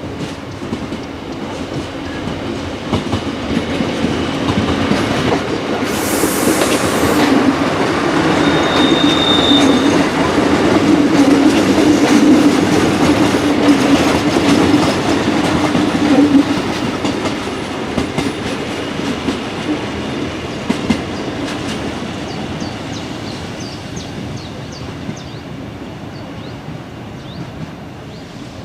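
A class 628 diesel railcar runs over points and crossings with a loud, irregular clatter from its running gear, the rattle typical of this class. Its diesel engine drone builds to a peak about twelve seconds in and then fades as it moves away, with a brief high wheel squeal about nine seconds in.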